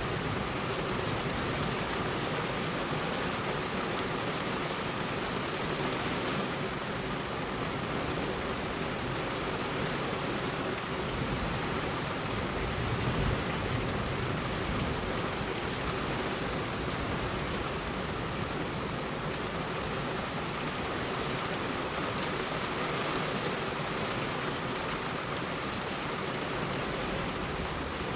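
Heavy rain falling steadily on a road, a dense, even hiss of drops, with a brief low rumble swelling about 13 seconds in.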